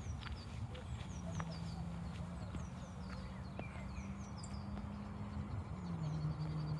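Small songbird singing: quick, repeated high chirps, each sliding downward, over a low rumble and a faint steady low hum.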